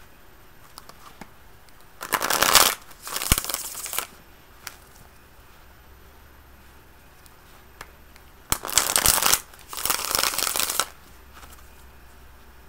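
A deck of tarot cards being shuffled by hand: two bouts of shuffling about two seconds in and again about eight and a half seconds in, each made of two quick runs of card noise.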